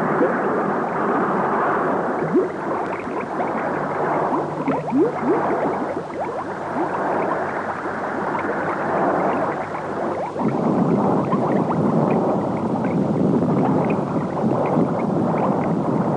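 Underwater bubbling and rushing water: a dense, continuous wash full of quick rising bubble sounds. It grows louder and deeper about ten seconds in.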